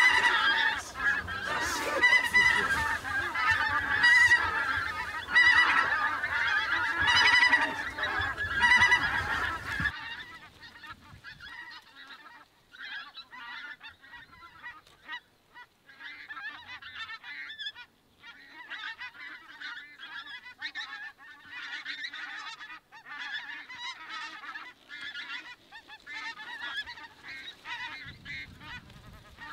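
A flock of pink-footed geese calling, a dense chorus of high honking calls. About ten seconds in it drops suddenly to fainter, more scattered calling that goes on to the end.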